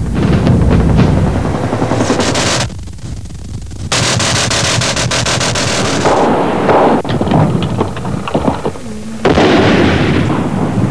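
Gunfire in combat: repeated bursts of rapid automatic rifle fire, with a short lull about three seconds in.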